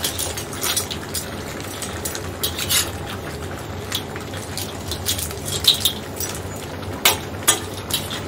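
A metal slotted spatula scraping and knocking against a large stainless steel wok as shell-on seafood is turned over, in irregular strokes. The loudest pair of knocks comes near the end.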